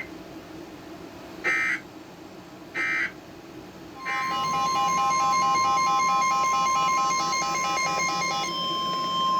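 EAS/NOAA Weather Radio alert signals: two short SAME digital data bursts a little over a second apart, then about four seconds in a steady alert tone starts. A pulsing beep of about four or five beeps a second runs over the tone and stops shortly before the end.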